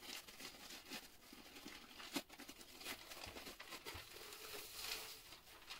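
Paper wrapping crinkling and rustling as it is unrolled from a rolled snowboard sticker, faint, with a sharper crackle about two seconds in.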